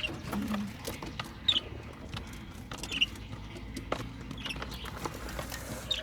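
A bird's short high chirp repeating about every second and a half, with scattered light taps and scratches between the calls.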